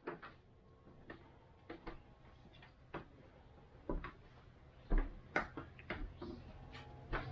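Footsteps on a wooden plank floor: irregular sharp clicks and knocks, with soft low thumps about once a second in the second half.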